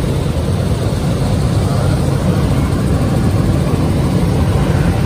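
Helicopter engine and rotor noise heard from inside the cabin in flight: a steady, loud low rumble.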